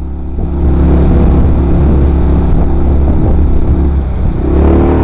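Small boat's tiller-steered outboard motor running steadily under way, getting louder about half a second in.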